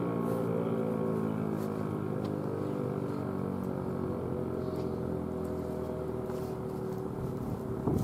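ASC T-128 electromechanical outdoor warning siren winding down at the end of its full-alert test, its tone sliding slowly lower in pitch as the rotor coasts.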